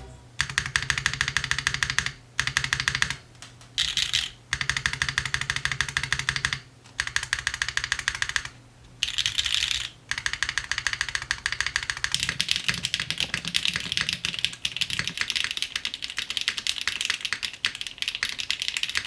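Mechanical keyboard being typed on fast, in long runs of clacking keystrokes broken by several short pauses.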